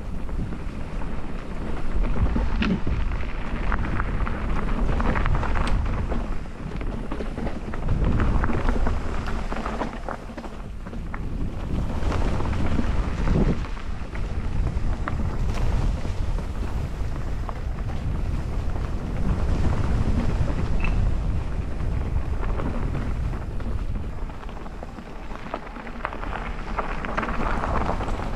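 Mountain bike riding over a rough trail: wind buffets the microphone, the ride rumbles low and steady, and there are scattered sharp knocks and rattles.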